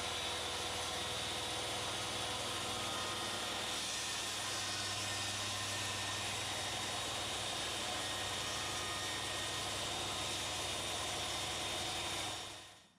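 Steady mechanical running noise with a thin, constant whine, fading out near the end.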